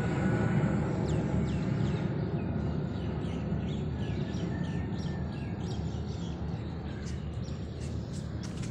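Low, steady rumble of a jet airliner passing high overhead, slowly fading. Over it a small bird chirps again and again, quick downward chirps about two a second.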